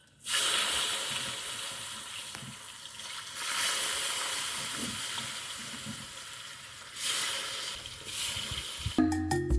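Sliced potatoes frying in hot coconut oil in a pan, a steady sizzle that swells louder about three and a half and seven seconds in.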